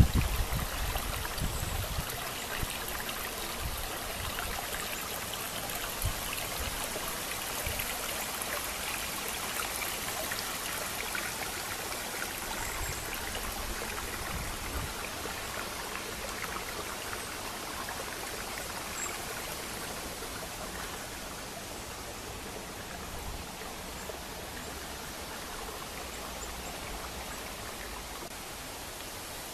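Small stream running and trickling steadily, slowly growing fainter, with a few low thumps in the first seconds.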